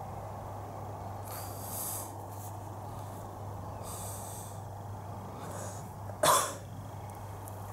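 A person coughs once, short and sharp, about six seconds in, the loudest sound here. Before it come a few softer breathy noises, over a steady low background rumble.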